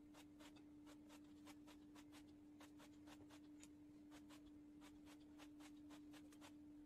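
Faint, irregular crackles and clicks of masking tape being pulled off its roll and pressed down along a wooden frame, a few a second, over a steady low hum.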